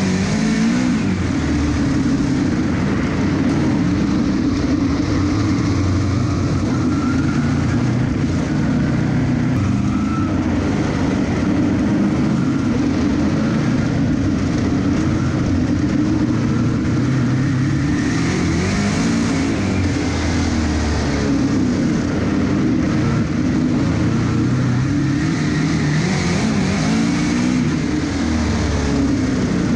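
Dirt track race car engine running hard at racing speed, heard from inside the cockpit. Its pitch rises on the throttle down the straights and falls back into the turns, lap after lap.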